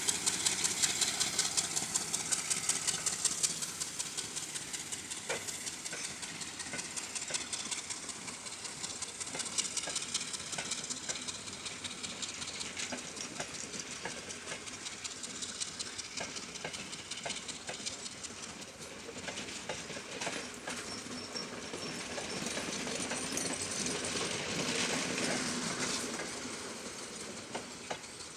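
A passenger train running through a station, its wheels clicking in a steady rhythm over the rail joints. The sound dies away after the first few seconds, swells again near the end, then fades.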